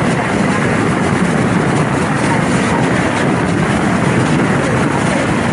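Steady noise of a motorboat underway: the engine running evenly, mixed with the rush of wind and water.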